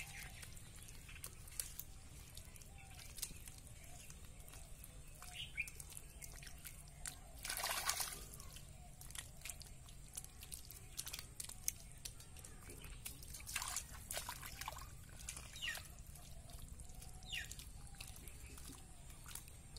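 Wet mud squelching and slapping under bare hands patting and smoothing it, in scattered small wet smacks with a louder sloshing burst about eight seconds in.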